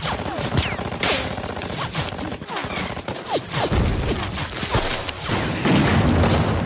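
Battle sound of heavy rifle and machine-gun fire with explosions, continuous and loud, with several short whines falling steeply in pitch from bullets or shells passing close; the heaviest blasts come about midway and near the end.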